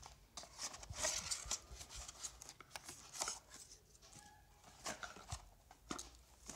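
Cardboard phone box and its paper-card inserts being handled: dry scraping and rustling with scattered light taps and clicks.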